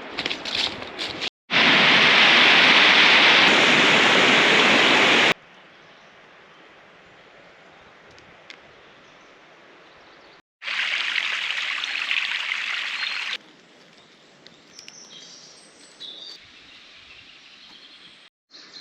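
A stream rushing close by, loud and even, heard in two short stretches that start and stop abruptly, with quieter outdoor background between them and a few faint bird chirps near the end.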